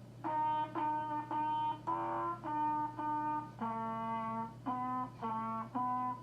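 Trumpet playing a simple tune of about ten separate notes, one of them held longer near the middle, over a steady low hum.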